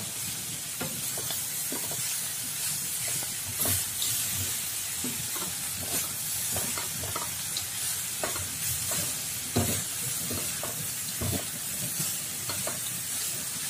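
Spatula stirring and tossing fried tempe, peanuts and anchovies around a wok over a steady sizzle, with frequent irregular clicks and scrapes of the spatula against the pan.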